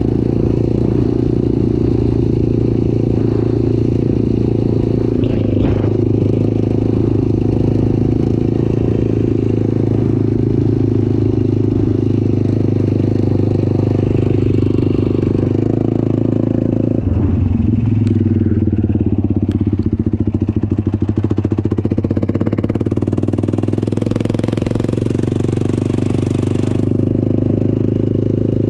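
Off-road vehicle engine running steadily while under way. The engine note dips and changes pitch for a few seconds past the middle, and a hiss joins for a few seconds near the end.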